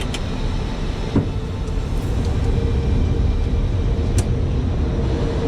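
Steady flight-deck noise of an Airbus A320neo in descent: airflow and engine rumble with hiss, a faint steady hum, and a few light clicks about a second in and again near four seconds.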